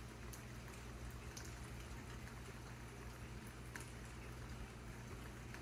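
Steady hiss of fairly hard rain falling outside an open door, with a few faint ticks.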